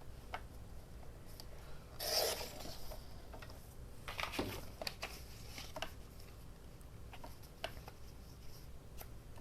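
Paper being handled at a craft desk: a loud rustle of paper about two seconds in, then scattered light clicks and taps.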